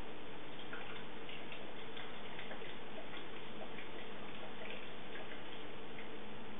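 Water poured from a plastic jug into the small top filler tray of an Iriza toy washing machine: a run of irregular little splashing ticks that stops about five and a half seconds in, over a faint steady hum.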